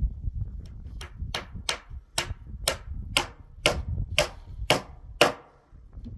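A run of about ten sharp, evenly spaced knocks, roughly two a second, starting about a second in and stopping shortly before the end, over a low rumble.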